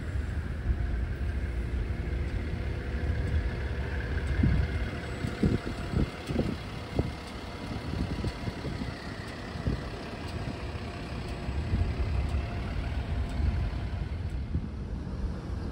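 Steady low vehicle rumble, with a few short knocks about five to seven seconds in.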